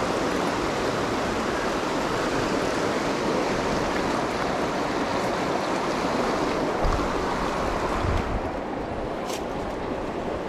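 Kern River rushing over rocks in a shallow riffle, a steady loud rush of water. A couple of low thumps come through about two-thirds of the way in, and the rush turns a little quieter and duller near the end.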